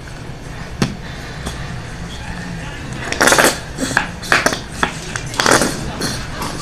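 Hands squeezing and shaking an upside-down plastic squeeze bottle of hair gel, giving short bursts of plastic crackling. The loudest bursts come about three seconds in and again about five and a half seconds in, with smaller ones between.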